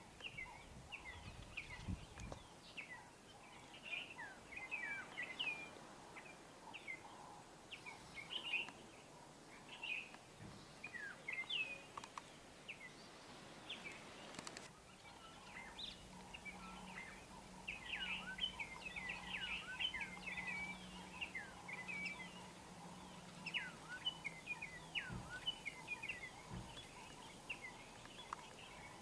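Small birds chirping and twittering, many short high calls and quick down-slurred notes overlapping continuously. A faint low hum joins about halfway through.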